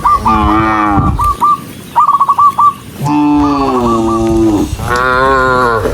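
Cows mooing: three long, loud calls, the later ones falling in pitch. Between them come two brief bursts of a rapid, stuttering, higher-pitched call.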